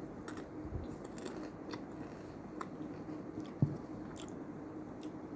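Close-up chewing and crunching of Mr Twist crunchy snacks, with scattered crisp crackles and one louder low thump about three and a half seconds in.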